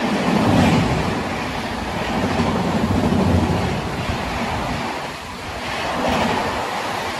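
Indian Railways express train's coaches passing at high speed: a continuous rushing rumble of wheels on rail and displaced air, swelling louder about every three seconds as the carriages go by.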